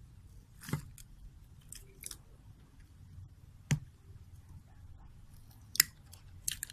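A roll of wide clear packing tape being handled and tape pulled from it: short crackly rasps as it peels, with three sharp clicks about a second in, near the middle and near the end.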